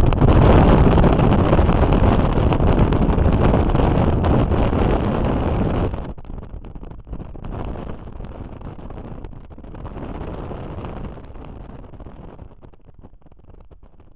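Wind buffeting the microphone and the road noise of a moving car, loud for the first six seconds, then dropping sharply and fading lower near the end.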